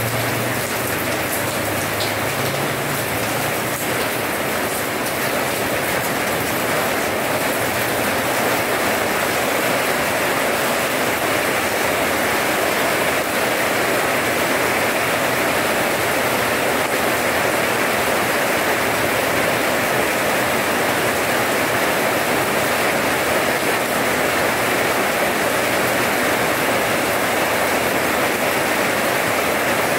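Steady rain falling on a paved yard, an even hiss of drops splashing on the wet paving.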